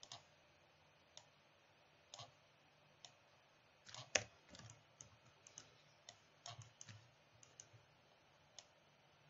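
Faint, scattered clicks of a computer mouse and keyboard, irregularly spaced, with a quick run of clicks about four seconds in.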